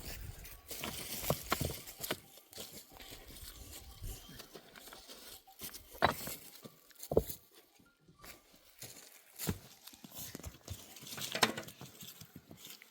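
Scattered sharp knocks and clicks over rustling, as materials are handled by hand.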